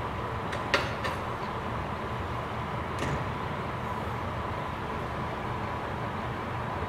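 KiHa 40 diesel railcar idling at a standstill, a steady low engine hum. A sharp click comes about a second in, with a fainter one just after.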